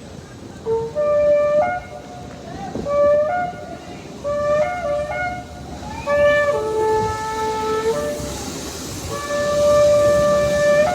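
Shofar (ram's horn) blown: about four short blasts in the first half, then two longer held notes, the last running to the end.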